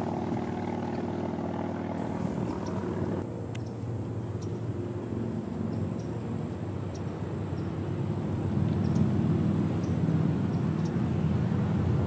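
Steady low engine drone, growing louder over the second half.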